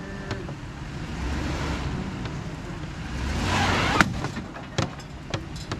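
Dodge Ram 1500 pickup's engine idling with a steady low rumble. A rush of noise swells about three seconds in and ends in a sharp click, with a couple of fainter clicks after it.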